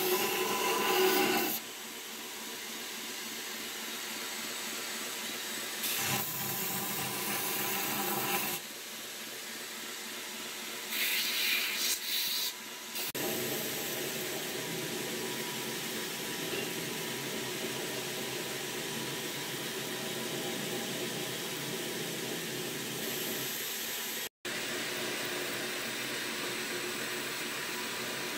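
Belt grinder running with a linen micarta knife handle being sanded on its belt: a steady hiss that grows louder for a few stretches in the first half and cuts out for an instant near the end.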